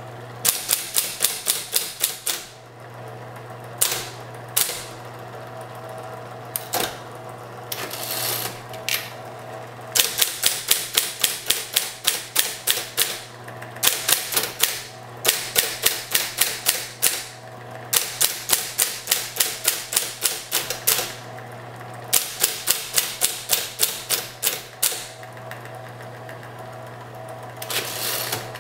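Smith Corona Model 5TE electric typewriter being typed on: quick runs of sharp key strikes, about six a second, broken by short pauses, over the steady hum of its running motor.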